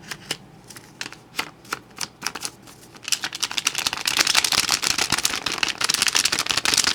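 Crisp new hundred-dollar bills being flipped and rustled: separate sharp paper snaps and crackles at first, then about three seconds in a louder, rapid, continuous crackling, which stops suddenly near the end.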